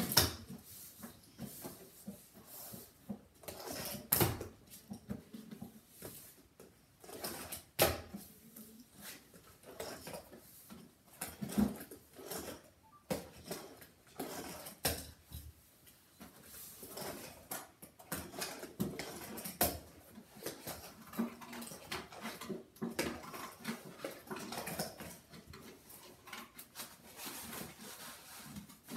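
Fingerboard knocking and rolling on homemade cardboard ramps and a felt-topped table: scattered light clacks and scrapes, with a few sharper clacks about four seconds in, near eight seconds and near twenty seconds.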